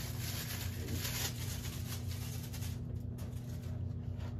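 Packaging rustling and crinkling as a handbag is handled and unwrapped, over a steady low hum.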